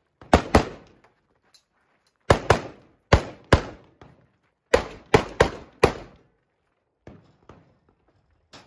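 Gunshots from a competitor's firearm, about ten sharp cracks fired mostly in quick pairs with short echoing tails, then a few faint knocks near the end.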